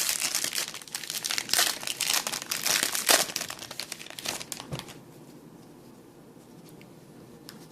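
A trading-card pack's wrapper crinkling and tearing as the pack is opened, in dense crackly rustles for about five seconds. After that come only a few faint ticks.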